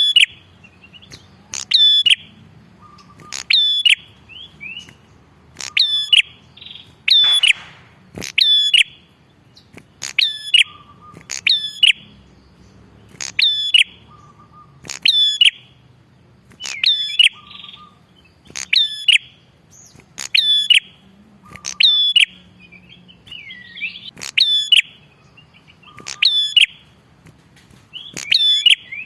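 Ashy tailorbird (prenjak kepala merah) singing steadily. A loud, sharp looping call repeats about every second and a half, with a short lower note between some of the calls.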